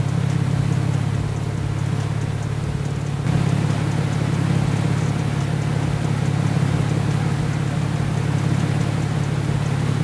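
Nissan Z's twin-turbo 3.0-litre V6 idling steadily, with an even rushing noise over it that rises slightly about three seconds in.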